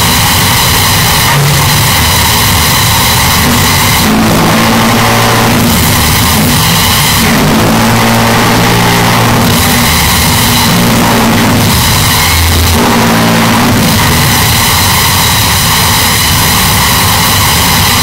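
Construction-site machinery noise, boosted until it is blown out and distorted: a loud, unbroken machine drone whose pitch keeps shifting. A harsh hiss comes and goes every couple of seconds.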